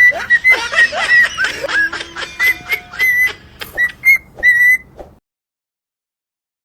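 Parrot whistling a tune in short, high notes, mixed with squeaky swooping calls. The sound cuts off about five seconds in.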